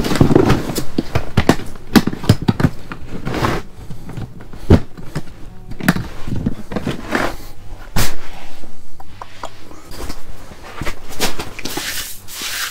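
Fishing gear being handled in an ice shelter: rustling of a gear bag with irregular knocks and clicks, and one loud knock about eight seconds in.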